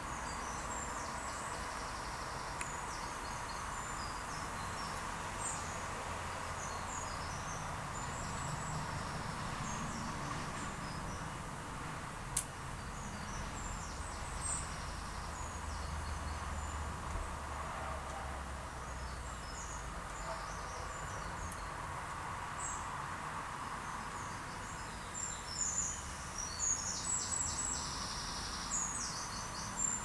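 Small birds chirping and twittering in short, high notes, scattered throughout and coming thicker and louder near the end, over a steady background hum. A single sharp click sounds about twelve seconds in.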